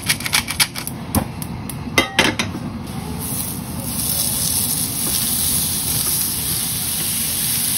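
Metal tongs clicking and clinking against a stainless steel bowl of oiled maitake mushrooms, with one ringing clink about two seconds in. From about three seconds a steady sizzle builds as the mushrooms sear on a hot grill pan.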